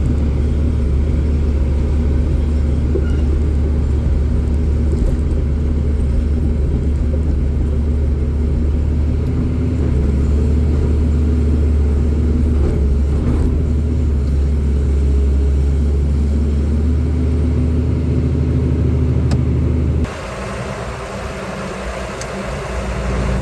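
A motor vehicle engine running steadily with a heavy low rumble. About twenty seconds in the rumble drops away suddenly, leaving a lighter hiss.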